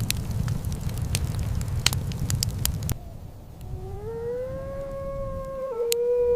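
A fire crackling and popping over a low rumble, cutting off abruptly about three seconds in. A dog's long howl then rises and holds steady, dipping slightly in pitch near the end.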